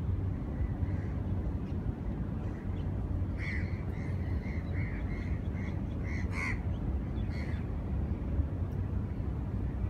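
A bird gives a run of about a dozen short, repeated calls, starting about three seconds in and lasting about four seconds, with one louder call near the end of the run. Underneath is a steady low rumble.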